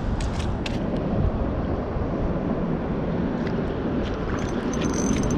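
Steady low rumbling background noise, with a few short faint clicks about half a second in and again near the end.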